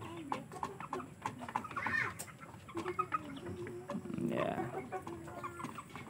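Young Aseel chickens, about two months old, clucking in short low calls while they forage, with a louder, harsher call a little past four seconds in. Scattered small ticks run through it.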